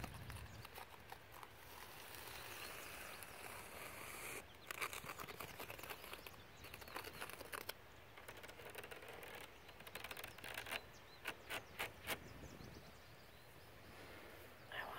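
Fingertips and nails scratching and tapping on a trampoline's safety enclosure, its mesh net and foam pole padding. The taps come in several short clusters of quick, sharp clicks over a faint outdoor background hiss.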